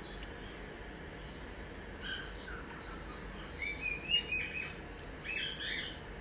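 Cockatiels chirping: short, scattered calls at first, then quick runs of chirps about four seconds in and again near the end, over a steady background hiss.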